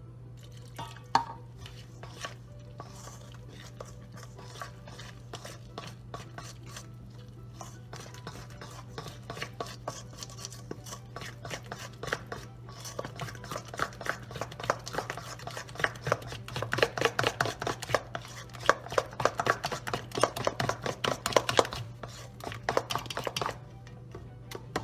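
Thick flour-and-egg batter being beaten by hand in a mixing bowl: the utensil clicks rapidly against the bowl, sparse at first, then faster and louder through the second half, stopping shortly before the end. A steady low hum runs underneath.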